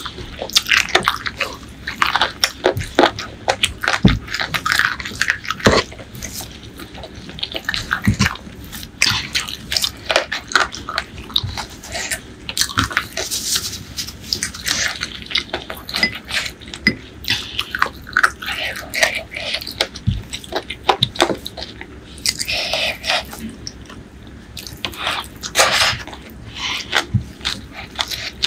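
Close-miked eating sounds: wet chewing and lip smacks on a mouthful of spicy chicken curry and rice, a dense, irregular run of sticky clicks and smacks.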